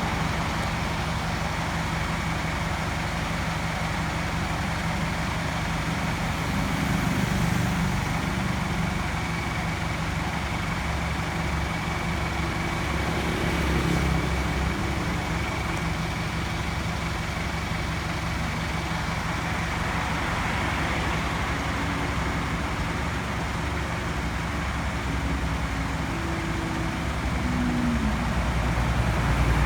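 A motor vehicle's engine running steadily, a low rumble that swells slightly a few times.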